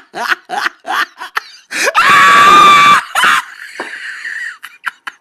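A woman laughing in short bursts, then a loud, high-pitched scream about two seconds in that holds for about a second.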